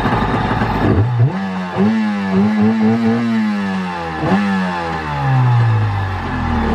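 Jet ski engine revved on land, running on a garden hose for cooling: its pitch climbs about a second in and holds for a few seconds, then a second, shorter blip of the throttle falls back toward idle.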